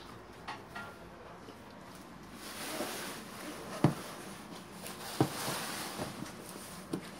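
Large cardboard TV boxes being handled and shifted: a scraping rustle that builds from about two and a half seconds in, with four sharp knocks, the loudest about four seconds in.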